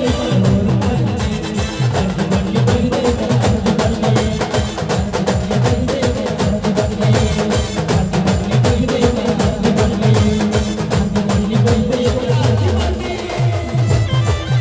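Instrumental break of a local folk band: a fast, dense drum beat under a held melody, with no singing.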